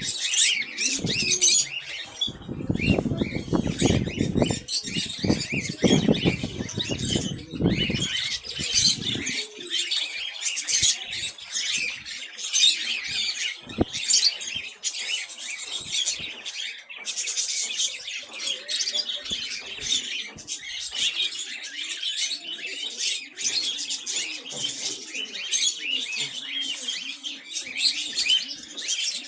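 Many caged pet birds chirping and calling together in a dense, continuous chatter. From about two to nine seconds in, a louder low fluttering joins it, wings flapping in the cage.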